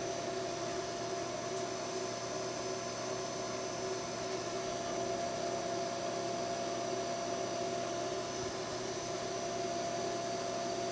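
Metal lathe running under automatic power feed, turning down a metal bar on an outside-diameter pass: a steady machine hum with a few held tones from the spindle drive and gearing.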